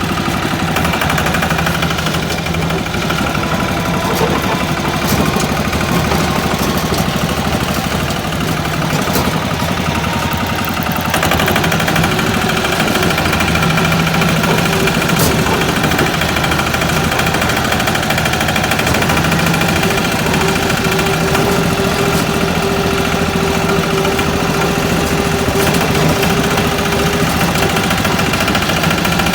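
Single-cylinder 'patpat' diesel engine running steadily with a knocking beat, getting a little louder about eleven seconds in.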